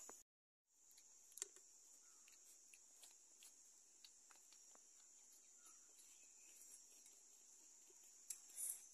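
Near silence: a faint steady high-pitched hiss with scattered soft clicks. The sound drops out completely for a moment just after the start.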